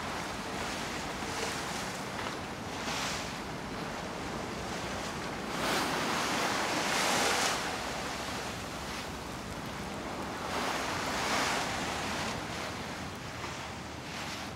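Sea water washing and rushing, with wind on the microphone; the rush swells louder twice, about six to seven seconds in and again around eleven seconds.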